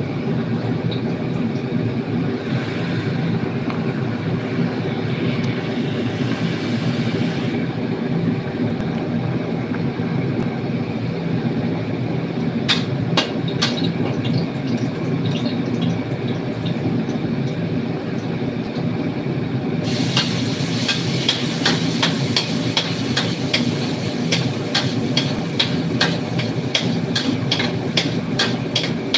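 Stir-frying in a wok: a steady low rumble throughout, with a few metal spatula clicks against the wok about halfway through. About two-thirds in, loud sizzling starts, with rapid scrapes and taps of the metal spatula on the wok.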